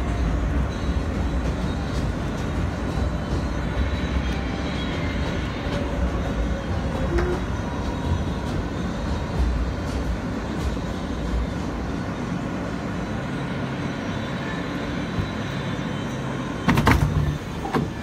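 New York City subway J train car running on the elevated line, a steady rumble of wheels on track that eases off in the second half as the train pulls into a station. A short, louder sound comes near the end.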